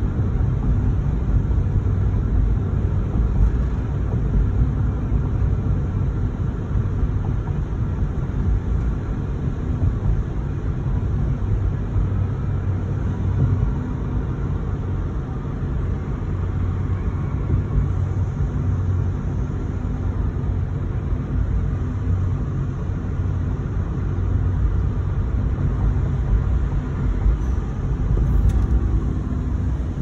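Steady low rumble of a car's engine and running gear, heard from inside the car's cabin.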